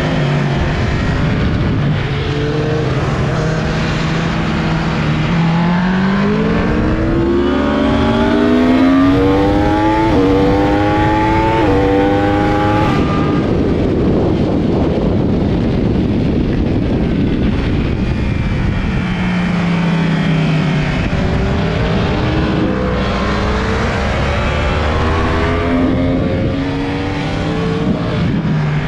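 Yamaha YZF-R1 inline-four sport-bike engine at racing speed: it pulls hard through several quick upshifts, the pitch climbing and dropping at each shift every second or two, then gives way to a rush of wind noise, falls in pitch as the bike slows, and climbs again near the end. Heard from a camera mounted on the bike, with wind buffeting the microphone.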